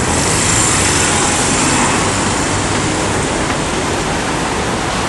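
City street traffic noise, a steady rush of road noise, with a van passing close by in the first couple of seconds.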